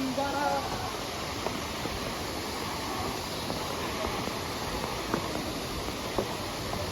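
Steady rushing of a waterfall, an even roar of falling water, after a voice calls out a name once at the start.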